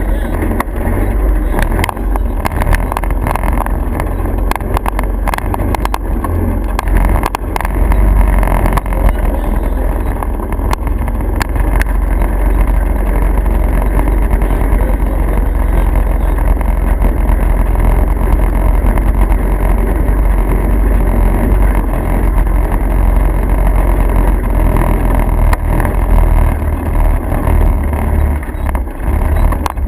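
Steady motor-vehicle rumble, deepest in the low end, with scattered clicks and rattles during the first dozen seconds.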